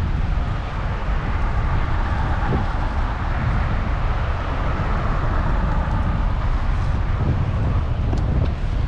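Wind buffeting the microphone in a steady low rumble, over the hiss of fast tidal current rushing past the kayak.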